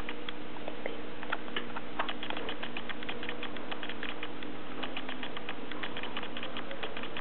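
Pet rats making quick runs of small, dry clicks, about ten a second, in bursts separated by short gaps.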